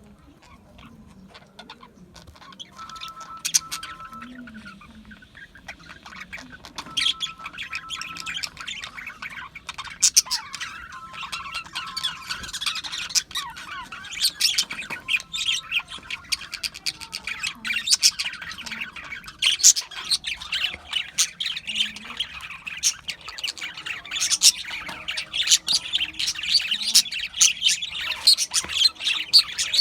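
A flock of budgerigars chattering, with many rapid overlapping chirps and squawks that grow busier and louder after the first few seconds.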